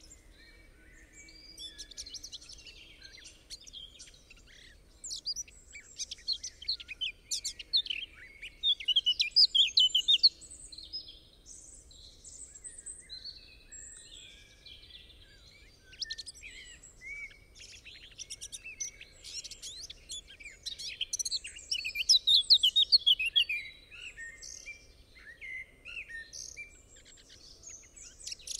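Several songbirds singing and chirping together, a woodland birdsong recording laid under the picture. The trills are busiest about a third of the way in and again about three quarters of the way through.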